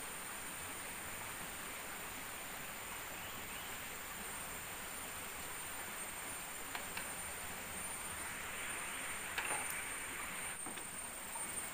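Insects droning with one steady high-pitched tone, over an even hiss of forest ambience, with a few faint clicks in the second half.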